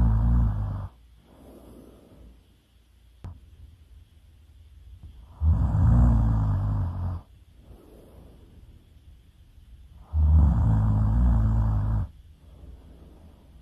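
Loud human snoring: a low, rattling snore about every four and a half seconds, each lasting about two seconds and followed by a softer breath. A faint click comes about three seconds in.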